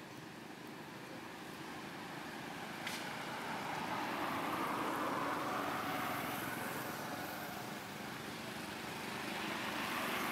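A motor vehicle's engine going by, swelling over the first few seconds, easing off, then rising again near the end.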